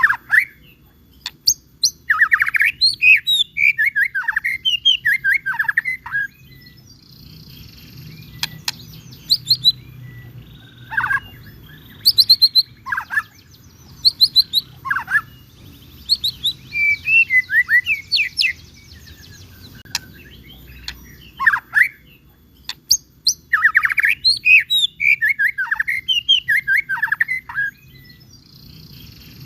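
White-rumped shama (murai batu) singing loudly: a varied song of rapid chips, trills and sweeping whistles, delivered in bursts of several seconds with short pauses between them.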